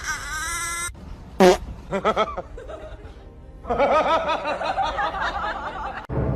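Added comedy sound effects over background music: short gliding cartoonish sounds, then a snickering laugh effect that warbles for about two seconds near the end.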